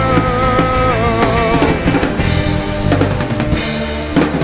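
Indie rock song played by a full band with drum kit: a held, wavering melody note over the first second and a half, then drums, bass and guitar carry on without vocals.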